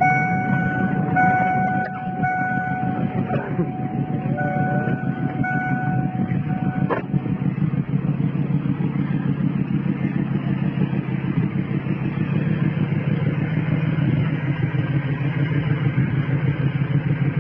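A steady electronic warning tone from the 1993 Lincoln Mark VIII sounds on and off while the door is open, and stops with a sharp knock of the door shutting about seven seconds in. Under it the car runs with a steady low rumble.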